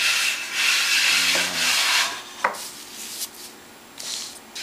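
A palm rubbing flour across a wooden pizza peel, a dry swishing scrape of hand on wood, strongest in the first two seconds. It is followed by two light knocks about halfway through and a quieter scuffing.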